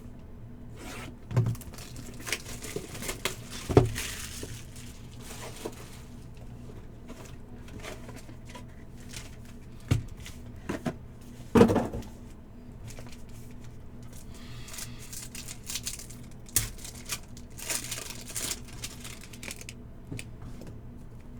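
Trading card packs being handled: wrappers crinkling and tearing and cards sliding, in two stretches of rustling, with scattered sharp knocks, the loudest about 4 and 11.5 seconds in.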